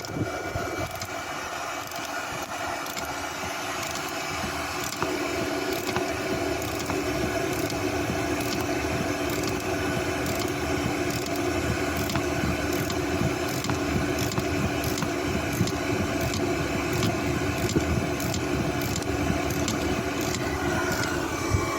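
Power tool running steadily as it backs a rusted exhaust manifold bolt out of the cylinder head, getting a little louder about five seconds in.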